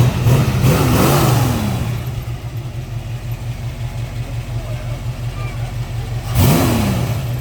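1970 Dodge Challenger R/T's 440 Magnum big-block V8 idling with an even lumpy pulse, blipped twice: a longer rev that peaks about a second in and falls back over the next second, then a short quick rev near the end.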